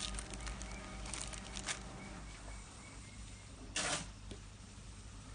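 Thin plastic toy bags crinkling and clicking as they are handled, with one louder, sharp burst of noise lasting about a quarter of a second near four seconds in.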